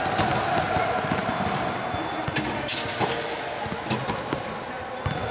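Basketball knocks and thuds as a ball is caught and shot, with a steady noisy background from a large gym.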